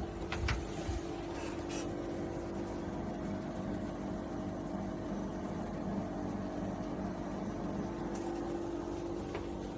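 Steady low machine hum with a faint, even pitch, and a few short faint clicks in the first two seconds.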